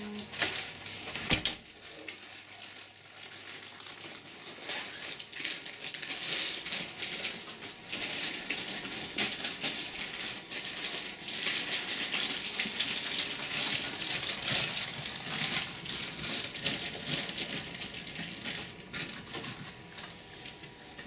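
Handling noise from a handheld camera: dense rustling and small clicks all through, with one sharp click about a second in.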